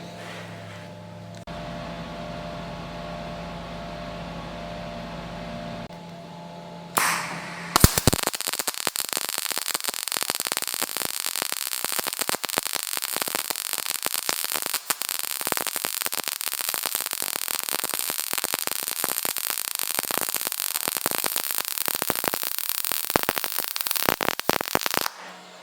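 A steady low hum for several seconds, then a MIG welding arc from an HTP Pro Pulse 200 strikes about eight seconds in and crackles steadily and evenly for most of the rest, stopping shortly before the end. It is welding thin box cutter blades on standard synergic settings.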